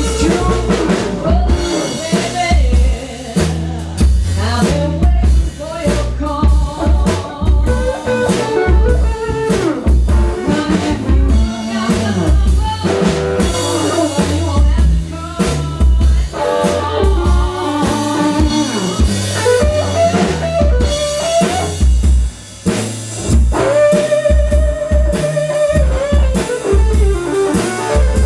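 Live blues band playing an instrumental break: electric guitar playing melodic lines over upright bass and a drum kit keeping a steady beat.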